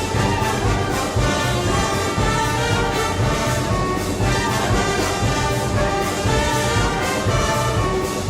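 Brass band playing Moros y Cristianos festival march music: brass over a steady percussion beat.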